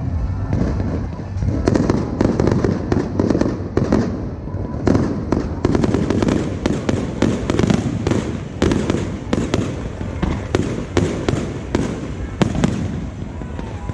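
Fireworks going off in quick succession: dense bangs and crackles, several a second, over a steady low rumble, with music behind them.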